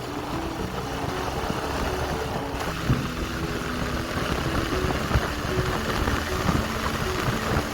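TVS Raider 125's single-cylinder engine running steadily, with road and wind noise.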